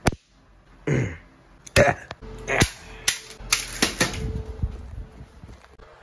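A series of sharp, loud cracks: one at the very start, then about half a dozen more in quick succession between about two and four seconds in.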